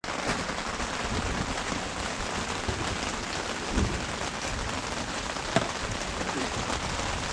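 Steady rain falling: an even hiss dotted with many small drop ticks, the sound of a thunderstorm downpour.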